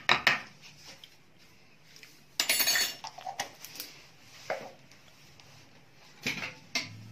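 Kitchen utensils, spoons and spice containers, clinking and clattering: a couple of sharp clinks at the start, a louder rattle about two and a half seconds in, scattered clinks after it, and two more clinks near the end.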